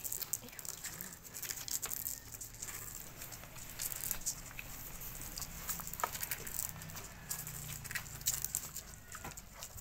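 Two-week-old puppies suckling at their mother's teats: soft, irregular wet smacking and clicking as they nurse.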